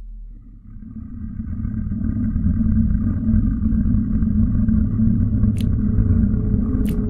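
Deep rumble swelling up over the first couple of seconds and then holding steady, with a sharp crack about five and a half seconds in and another near the end.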